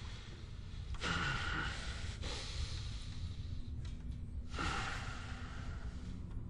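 A man breathing heavily in pain, in three long breaths of a second or more each.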